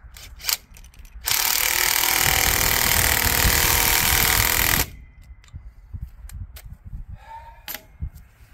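Cordless impact driver running a screw through a steel pole base plate into a timber frame. It hammers hard and steadily for about three and a half seconds, starting about a second in, with a couple of sharp clicks just before.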